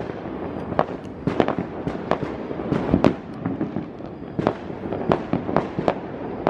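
Fireworks going off across a city: an irregular stream of sharp bangs and pops, one to three a second, some louder than others, over a steady background of more distant bursts.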